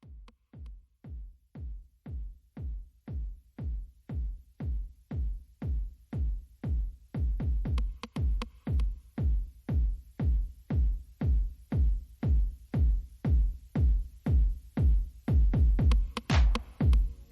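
Electronic background music with a steady kick-drum beat about twice a second, fading in from silence and growing louder, with brighter percussion joining near the end.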